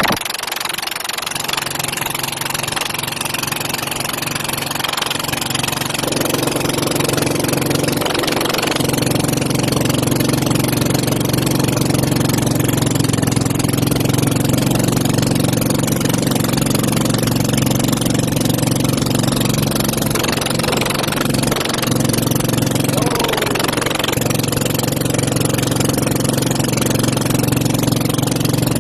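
A small engine running steadily, its note growing louder and fuller about six seconds in.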